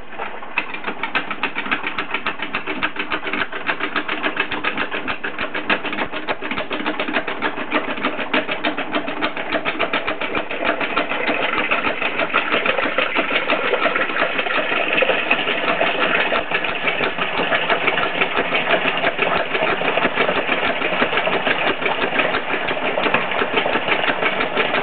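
A small machine running steadily with a rapid, even clatter, getting a little louder about ten seconds in.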